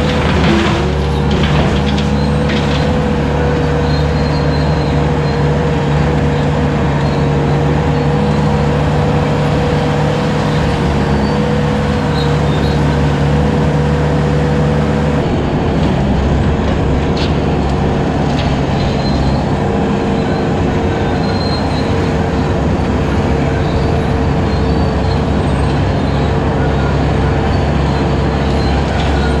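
Bobcat 873 skid steer's diesel engine running steadily at working throttle while its hydraulic 72-inch brush cutter spins, giving a steady whine over the engine. A few sharp knocks in the first seconds, and the engine tones shift about halfway through as the load changes.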